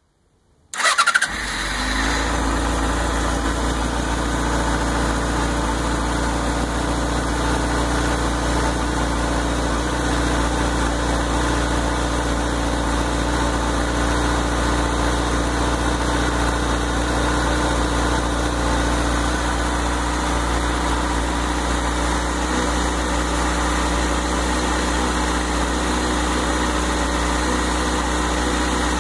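Motorcycle engine started about a second in, with a brief louder burst as it catches, then idling steadily.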